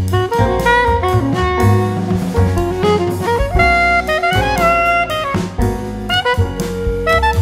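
Background music: an instrumental tune with a sliding melodic lead over a steady drum beat.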